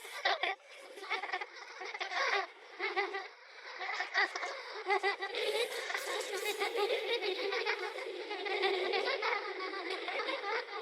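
Children laughing and giggling in distant, echoing layers, processed with reverb and tape-delay for a ghostly horror effect. The sound is thin, with almost no low end. Separate bursts of laughter give way to denser, overlapping laughter about halfway through.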